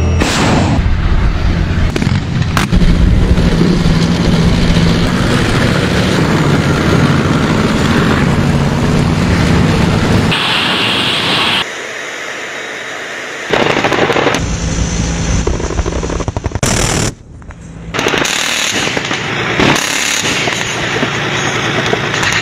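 Rapid automatic gunfire and heavy military machinery, cut together from several clips, with the sound changing abruptly at each cut.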